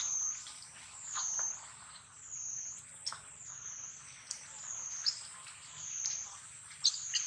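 A continuous high-pitched insect drone that wavers down and up in pitch about once a second, with a few short sharp chirps over it.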